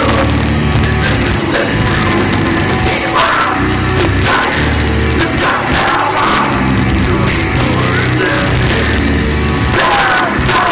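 Death metal band playing live: distorted electric guitar, bass and drums at full volume, with a steady drum beat.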